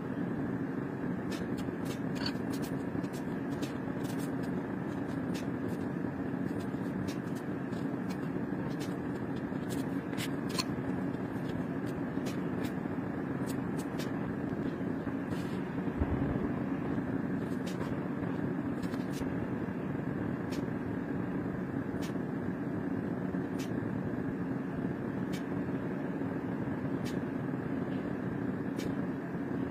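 Steady machine-like background hum, even in level, with many faint scattered ticks and clicks.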